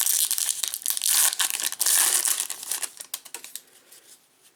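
A foil trading-card pack wrapper crinkling as it is torn open, dense and crackly for about three seconds, then dying away to a few faint rustles.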